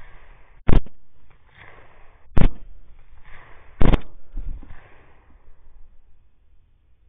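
Three rifle shots about a second and a half apart, each a sharp crack with a short fading tail, recorded through a thermal rifle scope's built-in microphone.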